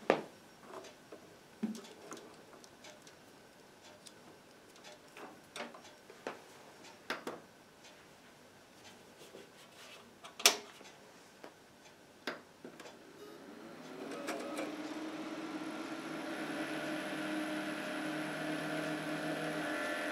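Scattered clicks and knocks of cable connectors being handled and plugged in, then about 14 s in a desktop PC powers up and its case and CPU cooling fans run at the full standard 12 V with a steady hum of several held tones, slowly growing louder: the fans' normal, unreduced speed.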